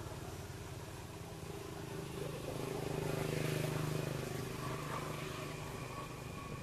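A motor engine humming steadily, growing louder about two seconds in and fading again after about four seconds, as if passing by.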